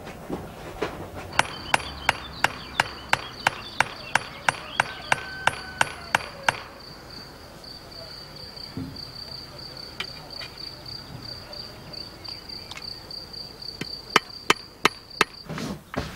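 Scythe blade being peened with a hammer: sharp metallic taps, about three a second, a run of some fifteen, then a pause and a shorter run of half a dozen near the end. Crickets chirp steadily behind.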